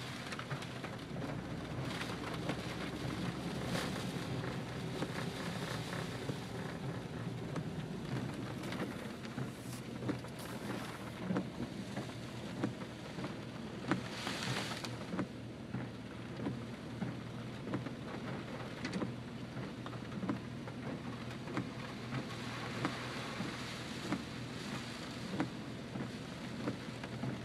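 Heavy hurricane rain falling steadily on and around a car, with many small sharp drop hits and a brief louder hiss about halfway through.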